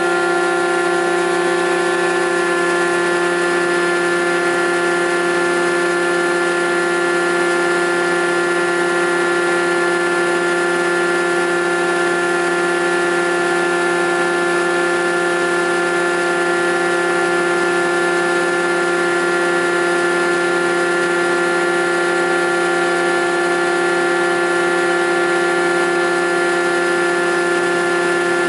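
TOS Svitavy F2T-80 double-sided planer running empty, with no timber feeding through: a steady hum made of several held tones that stay at one pitch throughout.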